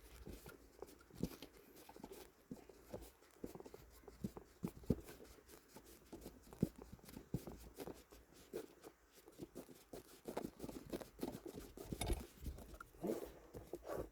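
Faint handling noises: scattered, irregular small clicks, taps and rustles of a hand-loosened fitting and a polystyrene soundproofing piece being worked loose by hand, a little busier near the end.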